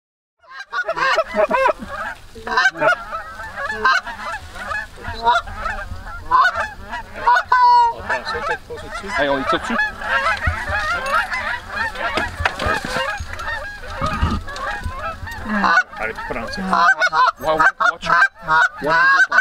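A flock of Canada geese honking, many calls overlapping without a break.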